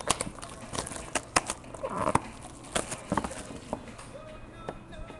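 Cardboard trading card box being handled and slid on a countertop: irregular light taps and knocks, with a short rustle about two seconds in.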